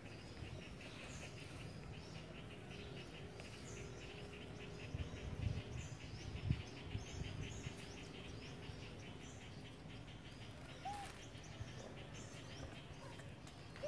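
Faint outdoor ambience: a steady, rapid chirping of short repeated pulses, with a few soft low bumps in the middle and a single short squeak about eleven seconds in.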